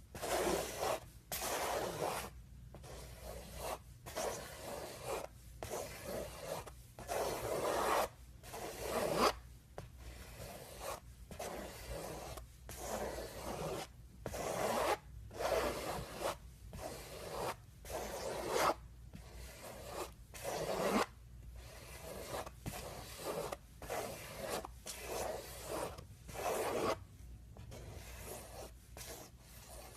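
Repeated scraping and rubbing strokes, each about half a second to a second long, coming at an uneven pace.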